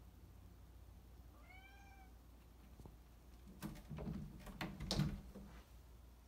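A cat gives one short, faint meow; then, about three and a half seconds in, a run of knocks and rattles as the cat paws at a bifold closet door and the door panels shift in their track, loudest about five seconds in.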